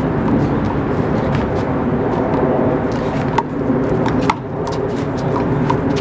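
Steady outdoor rumble of distant traffic, with a few sharp smacks of a rubber handball being hit and striking the wall in a rally, about three and a half and four seconds in.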